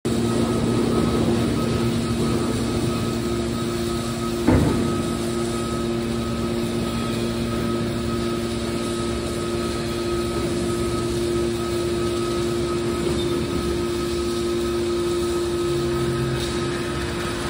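Hydraulic scrap metal baler running: the steady hum of its hydraulic power pack as the cylinders swing the heavy lid closed. A single metallic clank sounds a few seconds in.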